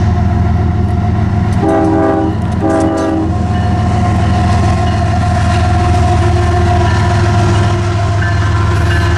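Horn of a CSX GE ES44AH freight locomotive sounding two short blasts about two seconds in. After the horn, the locomotive and its train of container cars run by steadily over a low, continuous drone.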